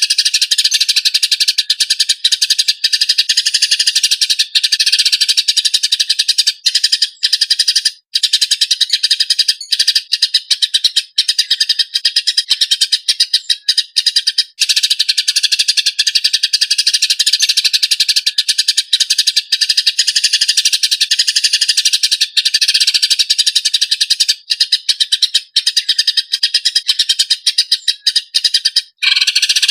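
Eurasian tree sparrows giving their harsh, fast, tightly packed fighting chatter: a continuous stream of rapid chirps with only brief breaks.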